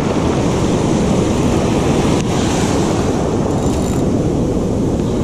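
Ocean surf washing on the beach, with wind buffeting the microphone in a steady low rumble.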